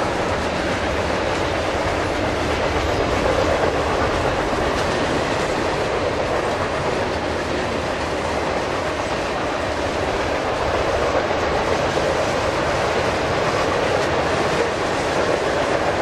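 Freight train cars (boxcars, covered hoppers and a tank car) rolling past: steady noise of steel wheels on the rails.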